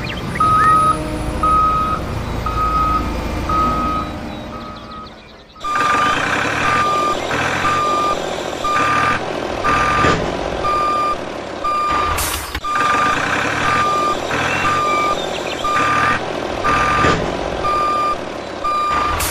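Vehicle reversing alarm beeping evenly, a little more than one beep a second, over the running noise of a heavy vehicle's engine. The engine noise dips briefly about five seconds in, then comes back louder.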